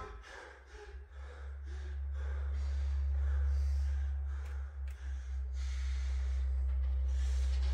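A deep, steady low drone that swells over the first few seconds and briefly dips past the middle, with short, irregular breathy gasps over it.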